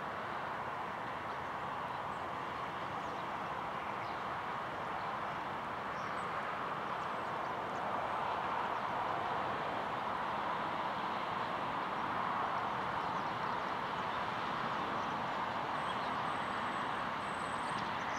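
Embraer E-Jet airliner's turbofan engines running as it slows on the runway after landing and taxis off: a steady rushing noise with a faint thin whine, swelling slightly about eight seconds in.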